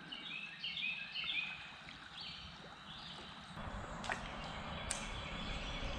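A bird sings a run of short, repeated high notes over faint river water; from about halfway, water and paddling noise around the kayak rises, with two light clicks.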